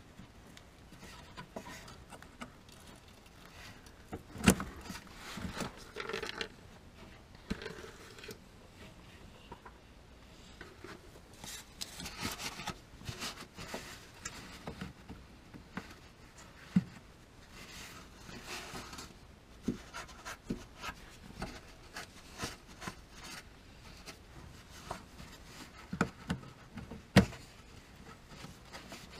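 Hands working a plastic fuel-line disconnect clip loose on a fuel filter under a car: scattered rubbing, scraping and rag rustling, broken by occasional sharp clicks and knocks. The loudest knocks come about four seconds in and near the end.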